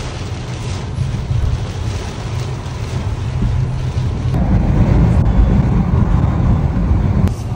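A car driving on a wet road: a steady rumble of tyres and engine that gets louder about four seconds in.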